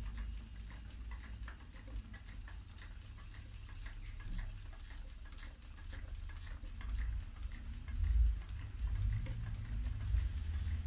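A treadled spinning wheel running as yarn is spun, giving a run of light clicks over a low rumble that swells about eight seconds in.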